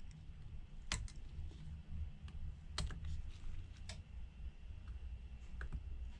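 Small, sharp clicks of repair tools against an opened iPhone 12 Pro's internal parts, as the battery connector is unclipped: three louder clicks about a second or two apart, with a couple of fainter ones, over a low steady hum.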